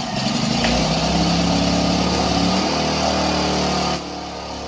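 ZUBR ZIG-1200 inverter generator's small four-stroke petrol engine running just after starting, then dropping suddenly to a quieter idle about four seconds in.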